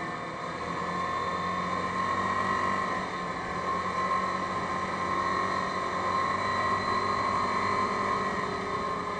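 Yamaha Grizzly 550 ATV's single-cylinder engine running while the quad rides along at a steady speed, an even drone with a steady high tone over it.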